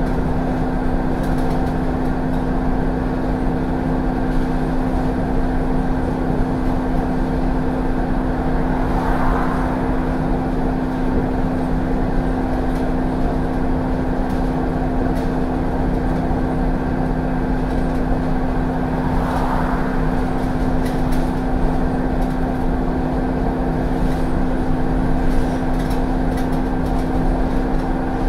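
Replacement engine of an ADL Enviro 400 double-decker bus, heard inside the upper deck, running at a steady, unchanging pitch: a loud, even drone with a strong steady hum. Two brief hissing swells rise and fade about nine and nineteen seconds in.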